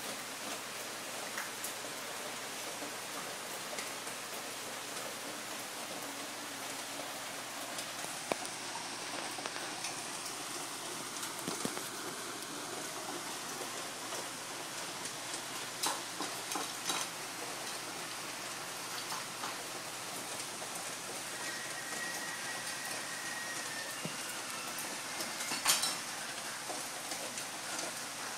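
A steady hiss with a few faint, scattered clicks and rustles. The loudest click comes about three-quarters of the way through.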